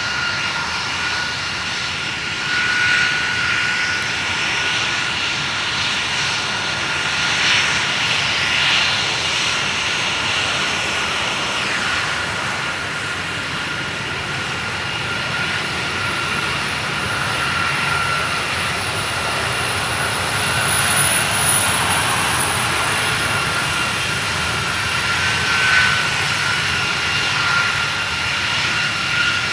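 KC-135R Stratotankers' CFM56 turbofan engines running at taxi power: a steady high whine over a jet rush that swells now and then as the tankers roll past in line.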